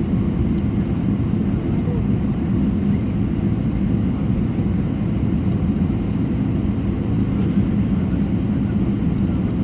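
Steady low rumble of a Boeing 777-300ER's GE90 engines running at low power, heard from inside the economy cabin before takeoff, with a steady hum underneath.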